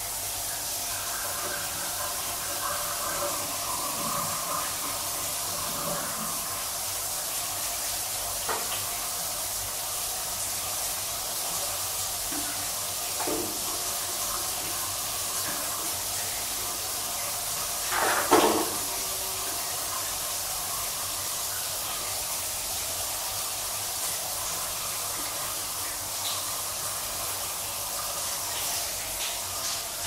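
Shower running: water spraying from the shower head and splashing in a steady hiss, with one brief louder splash a little past halfway.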